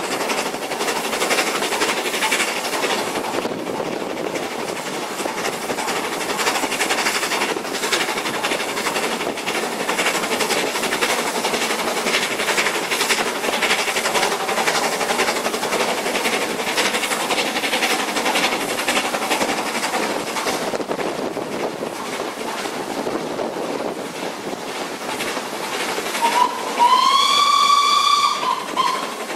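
Steam-hauled passenger train heard from an open carriage window, with a steady running rumble and wheels clicking over the rail joints. Near the end the steam locomotive's whistle sounds once for about two seconds, rising slightly in pitch as it opens, then holding.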